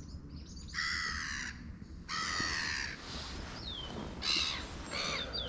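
A crow cawing: a series of harsh caws, the first two drawn out to about a second each, the later ones shorter and quicker.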